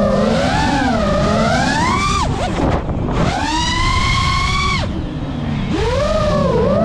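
FPV quadcopter's brushless motors and propellers whining, the pitch swooping up and down with the throttle; twice, about two seconds in and again about five seconds in, the whine drops away as the throttle is cut and then climbs back. A steady rush of wind runs underneath.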